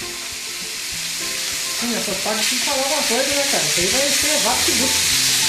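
Sea bass fillets sizzling in hot olive oil in a frying pan as they are turned with tongs; the sizzle grows steadily louder.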